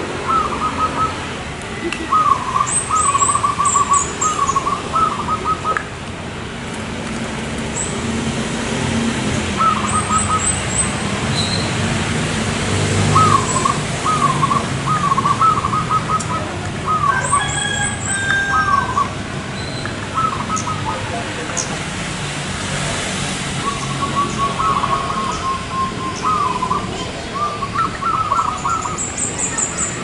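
Zebra dove (perkutut) cooing in repeated phrases of quick, rippling notes, with high thin chirps now and then above it and a steady low background hum.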